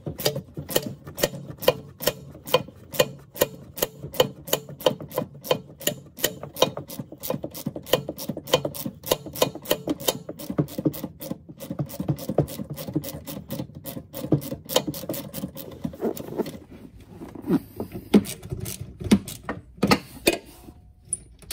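Socket ratchet clicking steadily, about three clicks a second, as it works a nut off the solenoid's top post. The clicking stops about three-quarters of the way through, and a few scattered knocks of handling follow.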